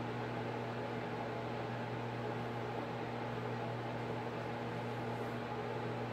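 Steady low hum with several fixed tones over an even hiss, from an unseen running appliance or fan.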